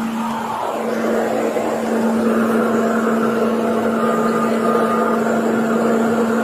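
Steady motor-vehicle noise with a constant low hum, growing a little louder about a second in.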